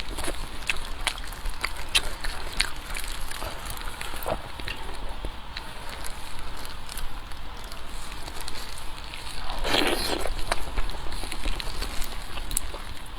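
Close-miked eating sounds: chewing with many short, crisp clicks and crackles at an uneven pace, and one louder noisy burst lasting about a second, about ten seconds in.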